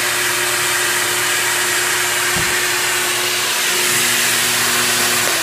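Shop vacuum running steadily with a constant motor hum and air rush, sucking air through a homemade vacuum-forming table to pull heated polystyrene sheet down over a pistol.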